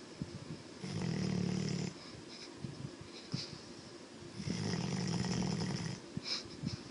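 Yellow Labrador retriever snoring in its sleep: two snores, each about a second long and about three and a half seconds apart, with small clicks and snuffles in the gaps between them.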